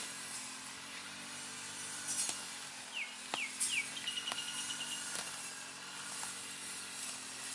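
Rural outdoor ambience: a low steady motor hum underneath, a few light clicks, and a bird calling about three seconds in with three quick downward whistles followed by a short rapid trill.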